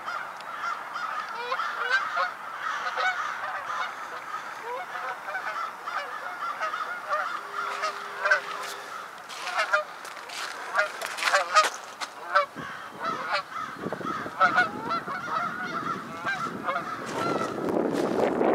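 A flock of geese honking, many calls overlapping without a break. A rushing noise builds underneath in the last few seconds.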